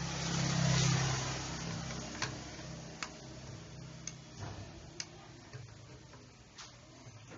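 Small gasoline generator engine of a Firman FPG1500L running with a steady low hum, louder near the start and easing off over the first couple of seconds. Scattered light clicks as hands work at the generator.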